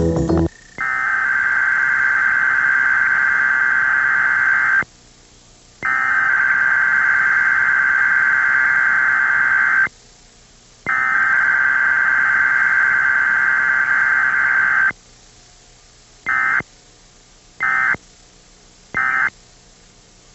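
Emergency Alert System digital header tones (SAME data bursts) for a Required Weekly Test: three long bursts of shrill warbling electronic tone, each about four seconds with a second's pause between, then three short end-of-message bursts.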